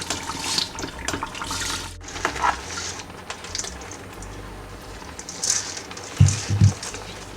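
Washed, wet rice being poured into a pot of jollof tomato sauce, a hissing, splashy pour that comes in bursts. A few dull knocks near the end.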